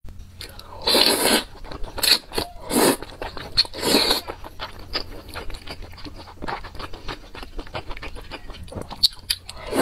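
Wide flat noodles in sauce slurped into the mouth, with three loud slurps about a second in, near three seconds and at four seconds, then wet chewing and lip smacking picked up close on a lapel microphone.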